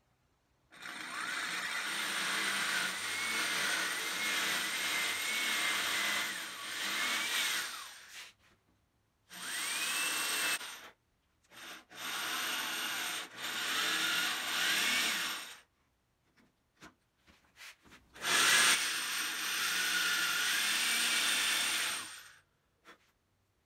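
Jigsaw cutting a piece of wood in four runs of a few seconds each. The motor's whine wavers and dips as the blade loads up in the cut, with short pauses and a few light knocks between runs.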